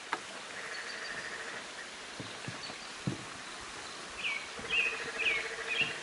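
Creek water rushing steadily, with frogs giving pulsed trills, one higher early on and one lower starting after about four and a half seconds. Over them a bird calls four short, falling chirps near the end, the loudest sounds here.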